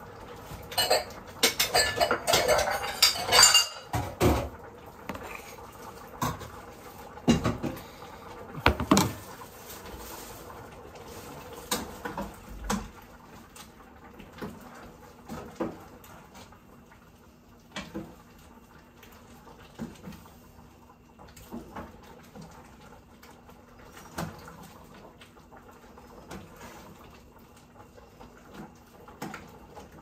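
Kitchen clatter of dishes, pots and utensils being handled. The clatter is dense in the first few seconds, with a few louder knocks after it, then only occasional light clicks.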